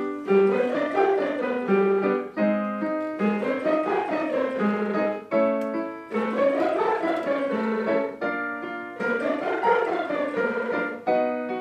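A chamber choir sings lip trills in unison, each one a smooth glide up and back down, about four times. Between the glides a piano sounds the notes that set each repetition.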